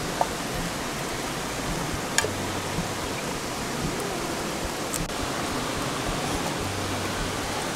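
River water rushing steadily, with a couple of short clicks about two and five seconds in.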